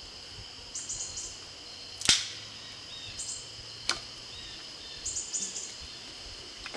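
Two sharp wooden knocks about two seconds apart, the first the louder, from splitting small firewood with a fixed-blade bushcraft knife. Insects drone steadily.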